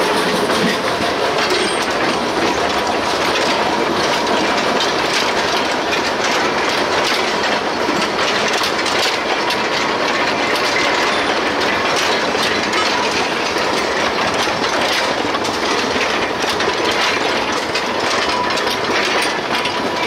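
Empty narrow-gauge timber wagons rolling steadily past, their steel wheels clattering over the rail joints in a dense clickety-clack, with a faint thin steady tone above it.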